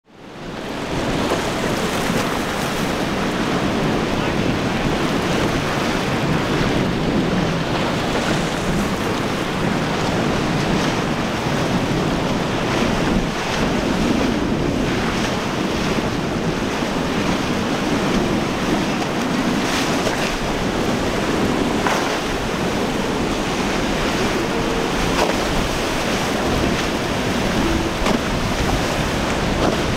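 Rough surf and choppy waves in an ocean inlet, with wind buffeting the microphone. The sound fades in over the first second and then stays steady and loud.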